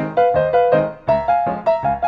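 Background keyboard music in a piano sound: single notes struck about four or five times a second, each fading away before the next.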